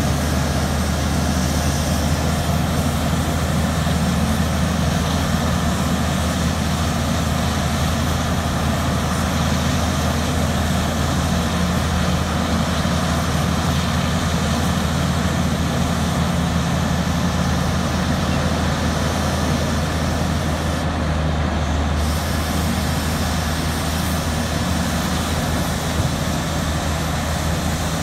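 Large diesel engines of a Terex RH170 front shovel and a mining haul truck running in a steady low drone while the shovel digs and loads.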